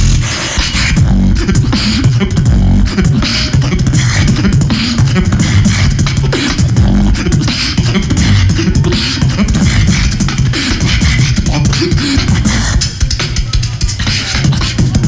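Fast human beatboxing into a handheld microphone: a dense, unbroken stream of rapid vocal percussion strokes with heavy bass beneath them.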